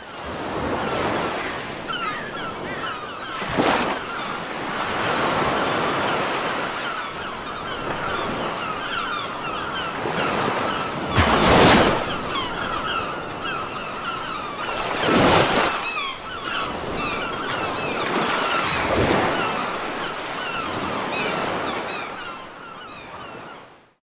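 Ocean surf: a steady wash of waves, with four louder breakers crashing and many short high chirps over it. It fades out at the end.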